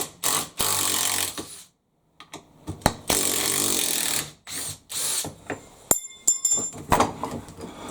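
Cordless impact driver backing long screws out of thick timber, running in two bursts of about a second and a second and a half, followed by shorter bursts and knocks.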